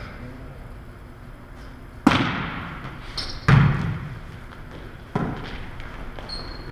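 A volleyball being struck by players' hands and forearms: three main hits a second or two apart, with a lighter touch just before the middle one, each echoing in a large gymnasium. A brief high sneaker squeak comes near the end.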